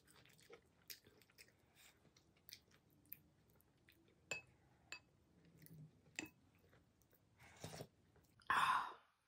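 Close-miked chewing of soft, wet food (pork sinigang vegetables), with scattered small mouth clicks and a louder burst of noise near the end.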